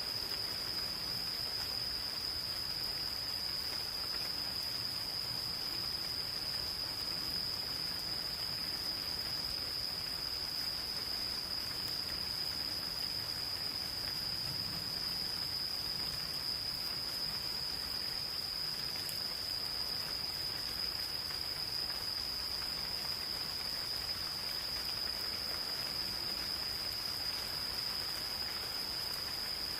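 A single insect's steady, unbroken high-pitched trill, over the even hiss of light rain falling.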